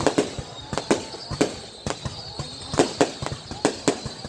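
Fireworks going off: many sharp bangs and cracks in quick, irregular succession, about three or four a second.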